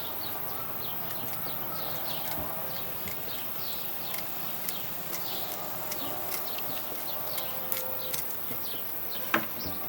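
A knife cutting open a trout's belly, heard as scattered small clicks and crackles, over steady background noise filled with short, repeated chirping calls of birds.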